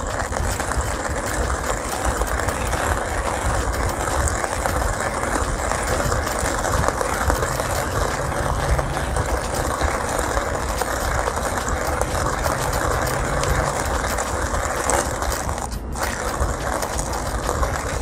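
Manual coffee grinder with ceramic burrs being hand-cranked, crushing coffee beans in a steady grinding rasp, with a brief break near the end. The burrs are set tight for a fine grind.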